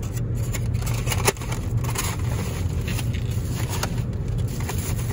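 Styrofoam takeout containers being handled inside a plastic bag: foam and plastic scraping and crackling, with a sharp snap about a second in. Under it runs a steady low car rumble.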